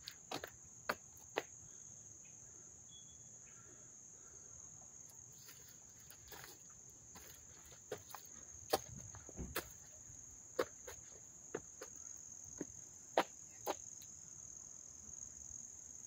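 A steady, high-pitched chorus of crickets chirping. Footsteps on stone steps and paving stand out over it as sharp taps, a few at the start and more in the second half.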